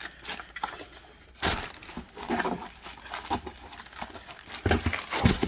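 Packaging being handled, crinkled and torn while a boxed candle is worked open: irregular rustling and crinkling with several louder scrunches, the loudest near the end.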